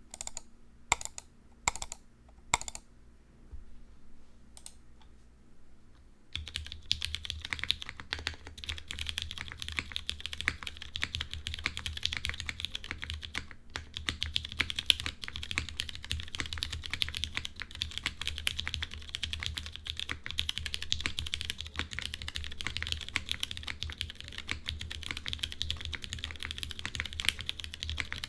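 Smith+Rune Iron165 r2 mechanical keyboard with lubed vintage Cherry MX Brown switches, full aluminum plate and GMK keycaps: a few single keystrokes in the first seconds, then from about six seconds in, fast continuous typing.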